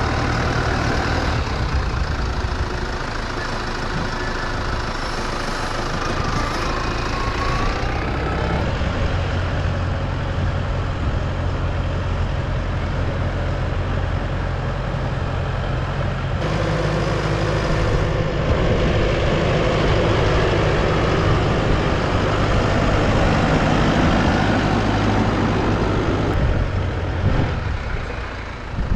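An engine running steadily under a constant rushing noise, its low note shifting about sixteen seconds in.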